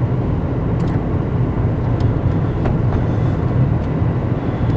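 Car driving on a wet road, heard from inside the cabin: a steady low engine and tyre rumble, with a few faint ticks.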